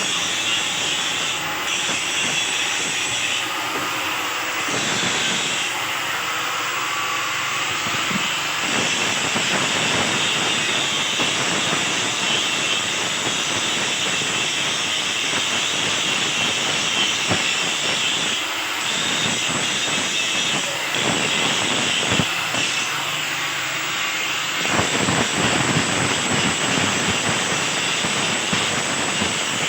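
Stick (arc) welding on a steel grill: the electrode arc crackles and hisses steadily, with its character shifting a few times.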